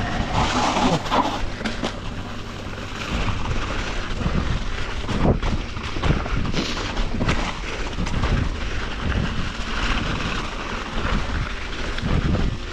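Mountain bike rolling fast along a dirt trail: wind buffeting the microphone, tyres on loose dirt and the bike rattling, with a few sharp knocks over bumps.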